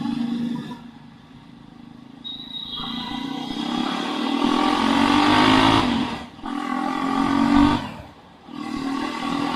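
Jawa 42 motorcycle's single-cylinder engine and exhaust opened up under acceleration. It builds after a quieter start, cuts off sharply twice (around six seconds and around eight seconds in) and picks up again each time.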